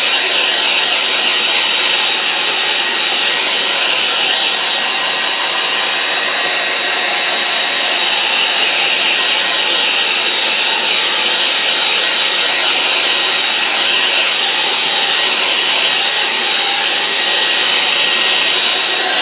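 Handheld hairdryer running steadily, a constant airy blowing with a high whine, drying a wet watercolour wash on paper.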